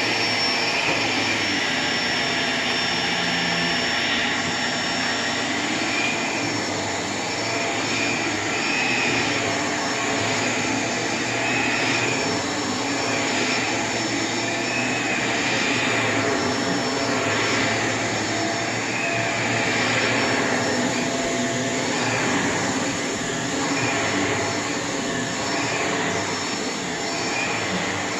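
Shark Rotator Pet Plus upright vacuum cleaner running steadily, its high whine wavering slightly every few seconds.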